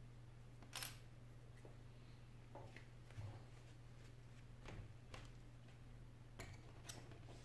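One sharp click about a second in, then several faint taps and clicks, as hands handle a cracked iPad and the suction cup stuck on its glass, over a steady low hum.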